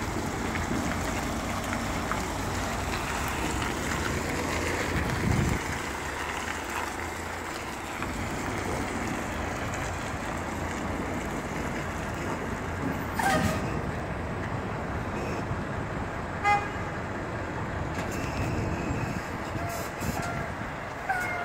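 Semi-truck running as the tractor-trailer manoeuvres slowly across the yard, a steady engine-and-road noise, with a brief high-pitched toot about sixteen seconds in.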